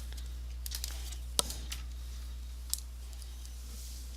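Screwdriver working a screw out of an Atari Mega STE keyboard's case: a few light ticks, then a sharper click about a second and a half in and a smaller one near the end, over a low steady hum.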